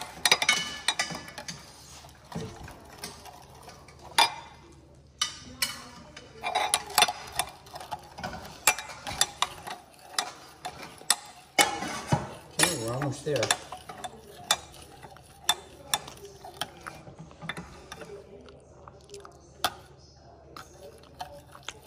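A metal spoon stirs a runny sauce in a glass measuring cup, clinking and scraping against the glass in irregular sharp taps.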